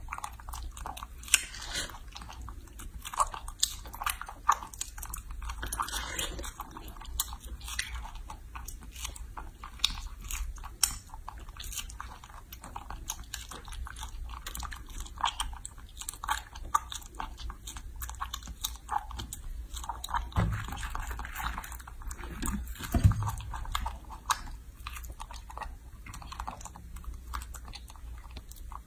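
A young macaque biting and chewing fresh strawberries: a dense, irregular run of short wet clicks and smacks, with two duller low thumps about two-thirds of the way through.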